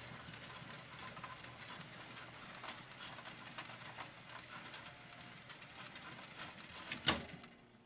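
Rock-Ola 496 jukebox record mechanism running through a test cycle, with faint, irregular clicking and ticking and a couple of sharper clicks near the end.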